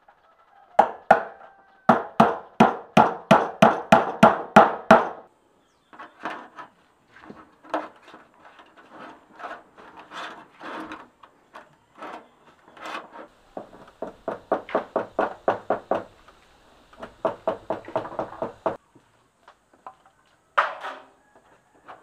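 Claw hammer driving roofing nails with bottle-cap washers through a corrugated metal sheet into a bamboo frame. The strikes come in runs of about three a second, with pauses between runs.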